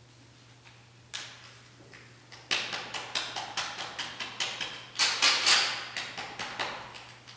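A hand tool worked against a large sheet of paper: a run of quick scratchy strokes, about three or four a second, after a single stroke about a second in. The strokes grow loudest a little past the middle and thin out near the end.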